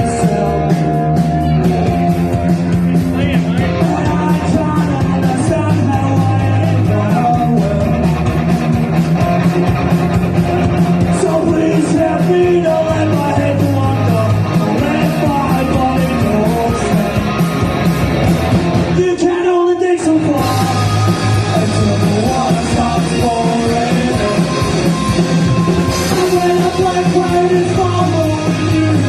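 Live rock band playing loudly: electric guitar, bass and drums with shouted singing. The band cuts out for about a second about two-thirds of the way through, then comes straight back in.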